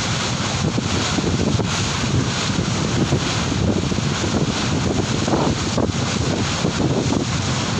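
Wind buffeting the microphone over the steady rush and splash of water along the hull of a boat under way.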